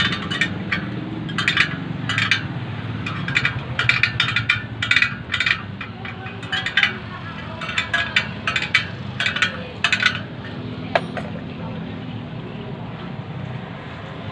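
Quick, irregular metallic clicks and clinks from the spokes and nipples of a spoked Kawasaki KLX 250 rear wheel being worked by hand during final truing on a stand. The clicking stops after about ten seconds, followed by one sharper clink with a short ring. A steady low hum runs underneath.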